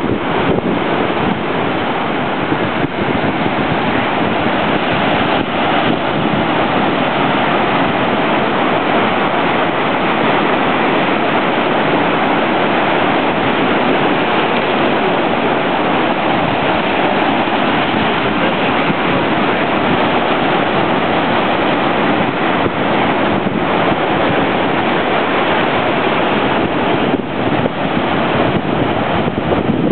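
Large ocean surf breaking against a rocky shoreline: a loud, steady roar of churning white water.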